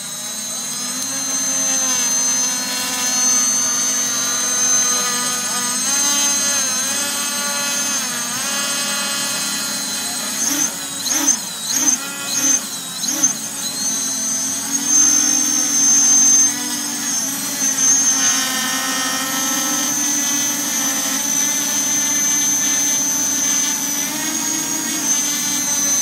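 Electric multicopter motors and propellers on a 6S battery running hard, blowing air down into burning charcoal to fan it. A steady high whine whose pitch sways, with quick throttle surges up and down in speed and loudness about halfway through.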